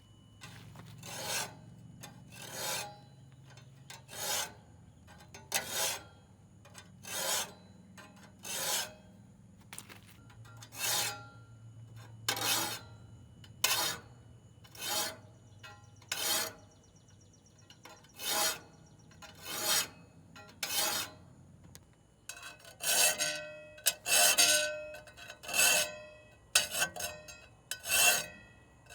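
Metal file stroking across the teeth of a brush-cutter (clearing saw) blade to sharpen it, in strokes about every second and a half. From about two-thirds of the way through the strokes come quicker and louder, with a metallic ring.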